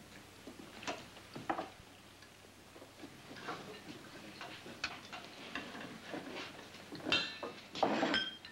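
Scattered clinks and knocks of dishes and cutlery as men eat, irregular, with a louder clatter and a brief metallic ring near the end.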